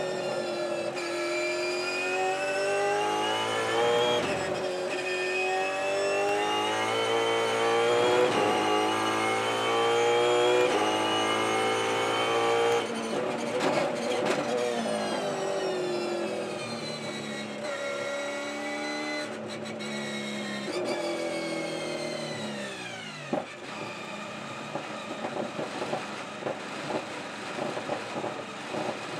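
V8 engine of a Ford Mustang Supercar at racing speed, its pitch climbing through the gears and dropping back at each upshift every few seconds. About three quarters of the way in the pitch falls away steeply as the car slows, leaving a lower, uneven engine sound.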